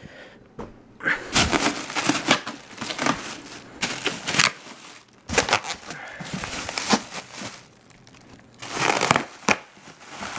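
Cardboard shipping box and its packing being pulled and worked open by hand: irregular rustling, crinkling and scraping in short bursts.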